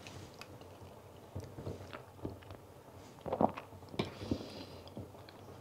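Quiet chewing of deviled eggs, with small clicks of a metal fork against a plate. The loudest sound is a short one a little past three seconds in, followed by a sharp click about a second later.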